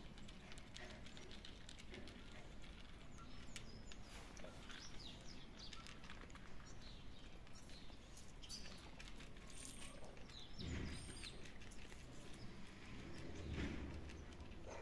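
Faint crunching of kittens chewing dry cat food, a scatter of small clicks, with a few short high bird chirps.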